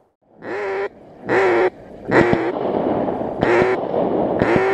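A series of loud duck quacks: five separate calls about half a second each, starting half a second in after a brief silence, over a steady rushing noise from about two seconds in.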